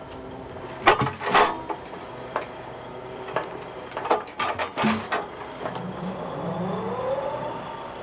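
Hydraulic log grapple setting a log onto a stacked pile: several sharp wooden knocks as the log bumps down and settles, then a low mechanical hum with a pitch that rises and falls near the end as the grapple moves away.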